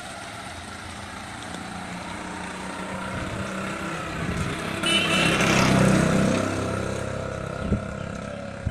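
A motor vehicle passing close by, its engine growing louder to a peak a little past halfway and then fading away, with a short knock near the end.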